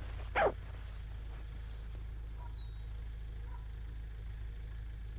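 Parson Russell terrier whining: a short sharp yelp about half a second in, then a thin, high whine that steps down in pitch at its end, over a steady low rumble.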